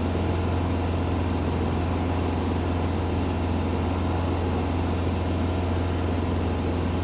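Car engine running steadily at a held 2,500 rpm, an even hum that does not change.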